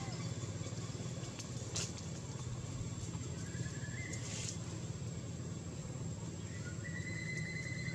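Steady low engine-like hum, as of a vehicle running nearby, under outdoor ambience. A faint high trilling tone comes and goes, with a single sharp click about two seconds in and a brief hiss about halfway.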